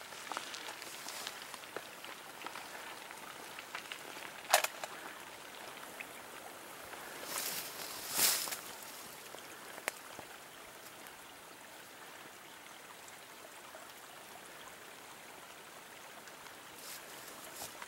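Steady outdoor background hiss with a few sharp clicks. The loudest click comes about four and a half seconds in, and a fainter one about ten seconds in. A brief louder rush comes about eight seconds in.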